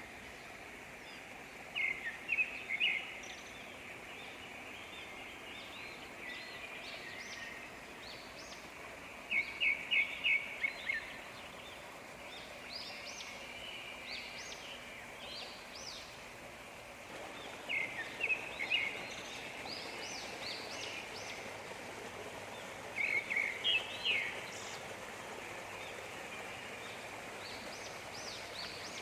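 Birds calling over the steady rush of a waterfall: four loud bursts of quick repeated notes, several seconds apart, with higher short chirps scattered between them.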